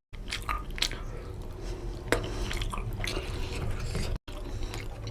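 Close-up wet chewing and lip-smacking of a person eating rohu fish curry with rice, a run of short sticky clicks and smacks. There is a brief dropout about four seconds in.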